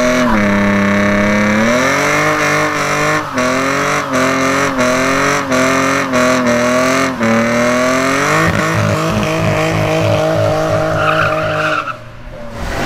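BMW E36 convertible doing a burnout: engine held at high revs with the rear tyre spinning and squealing. The revs dip for a moment several times and climb back. The sound cuts off about a second before the end.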